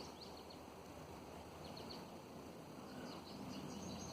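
Faint bird chirps: a few short, high notes in small clusters over quiet outdoor background noise.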